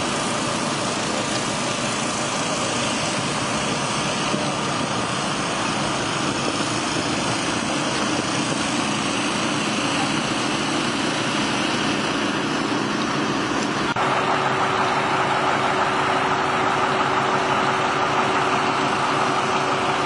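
Steady drone of engines running. About fourteen seconds in it grows a little louder and a steady hum joins it.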